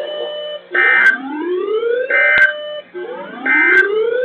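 Weather radio EAS end-of-message data: three short two-tone digital squawks about a second and a half apart, marking the end of the warning. Between the squawks, a whooping tone rises in pitch and then holds, repeating with each burst.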